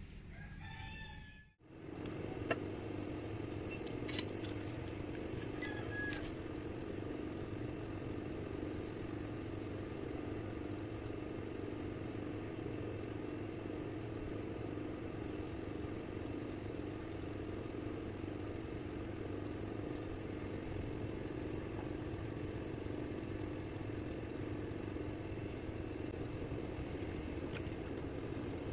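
A rooster crows briefly at the start. Then a corded electric power tool runs steadily with a constant hum, with a few sharp clicks in the first few seconds.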